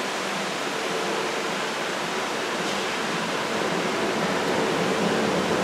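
Steady rushing of the churned white wake at a cruise ship's stern, the water thrown up by the azipod propellers below.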